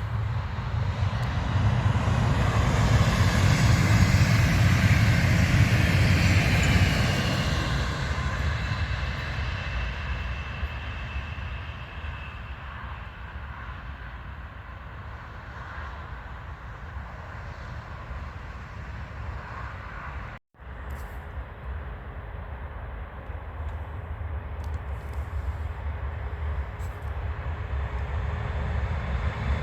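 A train passing on the line: a noisy rumble swells over the first several seconds and then fades away. About twenty seconds in, the sound cuts out for a moment, then another rumble slowly builds.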